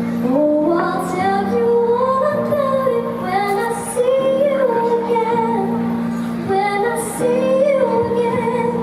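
A group of voices singing a song over musical accompaniment, the melody moving between held notes.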